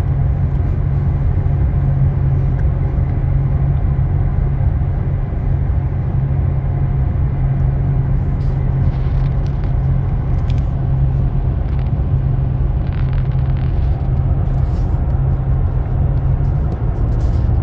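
Steady low engine and road drone inside the cab of a Chevy Colorado pickup cruising at highway speed while towing a car on a trailer.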